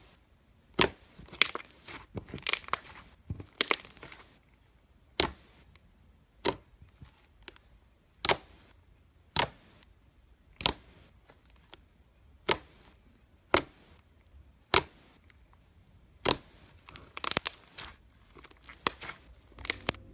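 Thick, opaque slime being pressed and squeezed by hand, giving sharp pops and crackles, mostly single ones about a second apart, with quick clusters a few seconds in and again near the end.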